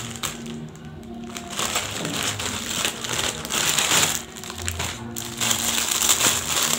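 Plastic packaging crinkling and rustling as a mailer is opened and a bonnet in a clear plastic bag is pulled out and handled. Background music plays underneath.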